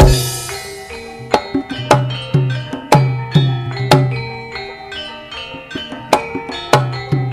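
Javanese gamelan (karawitan) music: hand drum strokes with deep, sliding bass notes, about two a second, over ringing metallophone tones, with a bright cymbal-like crash right at the start.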